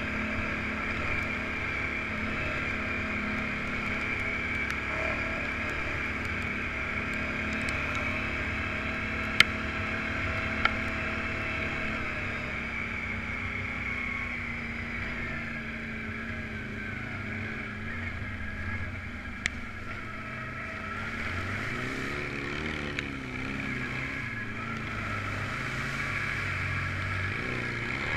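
Off-road vehicle engine running steadily while under way, with a few short sharp clicks; the engine note drops a little past the middle and wavers up and down near the end.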